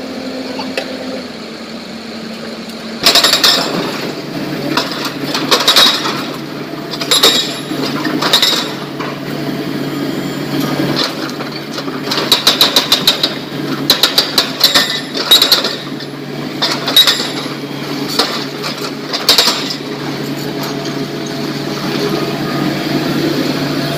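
Excavators working broken rock: a diesel engine runs steadily under loud, irregular clattering impacts of rock and steel. From about three seconds in some impacts come singly and some in quick runs of several strikes a second.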